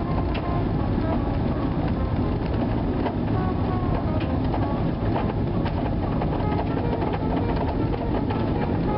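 Steady road noise heard inside a moving vehicle's cabin: engine and tyres running on a snow-packed highway, with scattered small clicks and rattles throughout.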